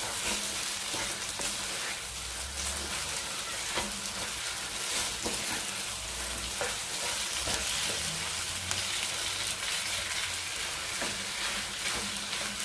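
Milk-soaked semolina halwa sizzling in hot oil in a non-stick kadai while a spoon stirs it without stopping, with a steady frying hiss and frequent short scrapes of the spoon on the pan. The mixture is at the golden, roasting stage, with nuts being mixed in.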